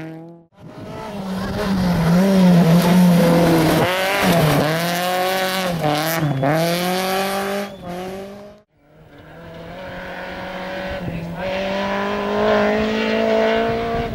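Rally car engines at full throttle on a gravel stage, one car after another. The first engine revs hard with several quick lifts and gear changes. After a short break about eight and a half seconds in, a second car's engine climbs steadily in pitch as it comes closer.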